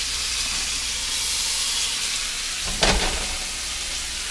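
Bacon and ham slices sizzling steadily in a hot carbon steel frying pan, with a single loud thump a little under three seconds in.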